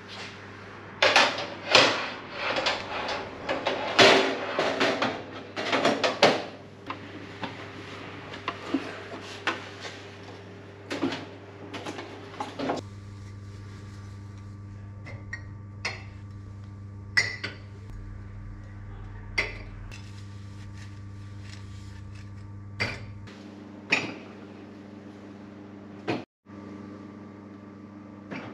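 Stainless-steel drip tray and grate of an espresso machine being slid and fitted in place, a quick run of metal clatters and rattles in the first few seconds. Then scattered clinks as ceramic cups are wiped and set down on the machine's cup tray, over a steady low hum.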